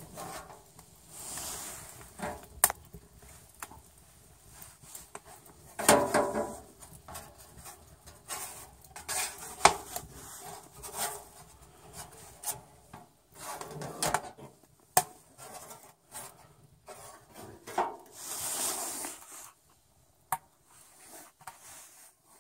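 Metal scraping and knocking on a sheet-metal box wood stove as the swivel draft cover on its door is turned to close down the air intake and slow the fire, with sharp clicks scattered throughout.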